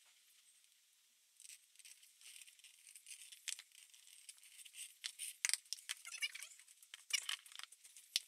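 White wood glue squeezed from a plastic squeeze bottle onto a board: faint, irregular spluttering and crackling as glue and air come out of the nozzle, with a few small clicks.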